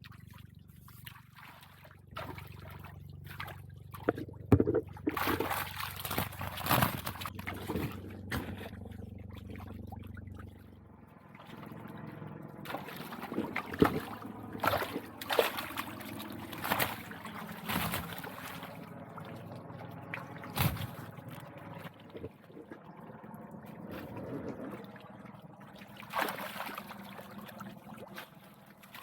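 Water splashing and sloshing in irregular bursts, over a low steady hum that stops about eleven seconds in.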